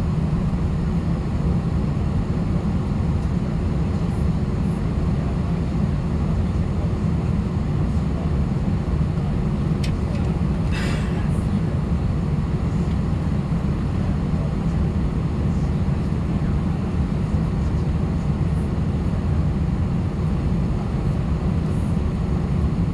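Steady cabin noise inside an Airbus A319 airliner: a constant low rumble with steady hums over it and no change in level. About halfway through there is one brief high-pitched sound.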